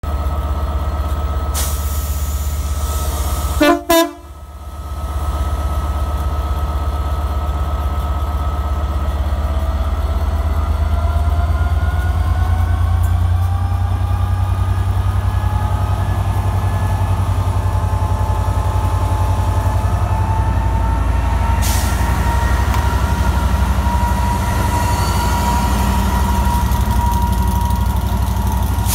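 Class 67 diesel locomotive's EMD V12 two-stroke engine idling, with a short blast on its horn about four seconds in. The engine then revs up, its pitch rising steadily as the locomotive pulls away and runs past.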